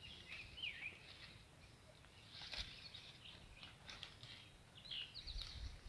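Small birds chirping faintly, with short quick calls in the first second and again near the end. Now and then there is a soft rustle and snap of leafy plant stems being picked by hand.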